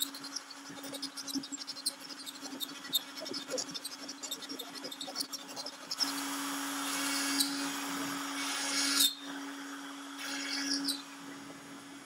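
Onefinity CNC router's spindle humming steadily while a 1/8-inch end mill drills holes through a cedar board. In the first half there is a fast run of short pecking clicks. After that, at normal speed, comes a louder whir of cutting that swells and breaks off twice.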